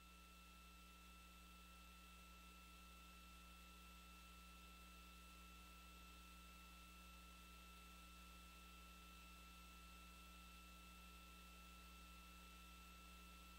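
Near silence: a faint steady electrical hum and hiss with a thin, unchanging high tone.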